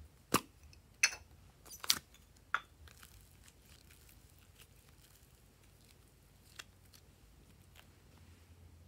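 Four sharp plastic clicks in the first few seconds as a small plastic container of clay is handled and opened, then quiet handling of the soft clay with a couple of faint ticks.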